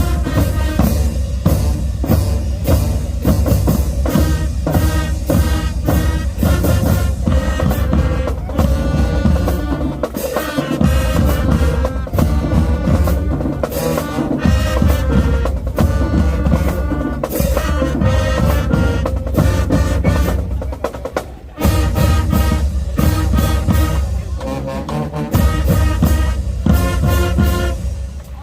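A school band playing a loud up-tempo tune on brass and drums with a heavy bass-drum beat. It cuts out for a moment about three-quarters of the way through, then comes back, and stops at the very end.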